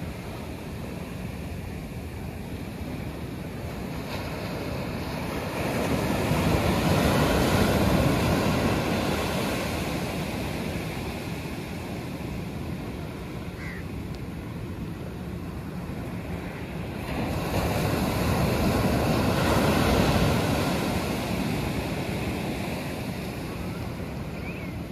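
Sea waves breaking and washing up a sandy beach: a steady rushing surf that swells into two louder surges, one about six seconds in and another about seventeen seconds in, each fading over a few seconds.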